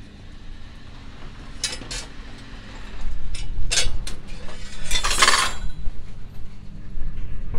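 Stainless steel rods and metal parts clinking and knocking as they are handled on a workbench: several separate light metallic clinks, with a half-second scrape about five seconds in.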